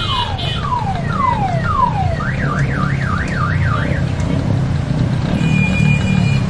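A car alarm sounding through its cycle of tones: first a run of falling whistles about twice a second, then a fast rising-and-falling warble, then a steady high tone near the end, over low street rumble.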